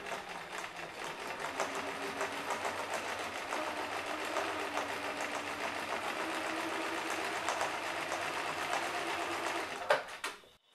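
Bernina Record 930 domestic sewing machine running steadily at speed, its needle stitching through fabric with a fast, even clicking over the motor hum. It ends about ten seconds in with a sharp click, after which the machine falls quiet.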